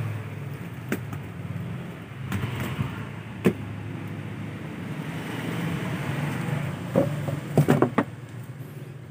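Plastic-wrapped cigarette cartons being handled and set down: short sharp knocks and crackles of cellophane-wrapped packs, a few single ones and then a quick cluster of them near the end. A steady low hum runs underneath.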